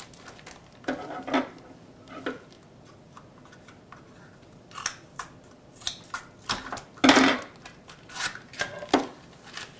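Scissors snipping open a small foil blind bag, with crinkling of the packaging: short sharp snips and rustles come and go, the loudest a burst of crinkling about seven seconds in.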